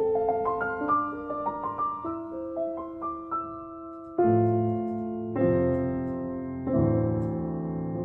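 Background piano music: a gentle melody of single notes, then three held chords struck about a second and a quarter apart.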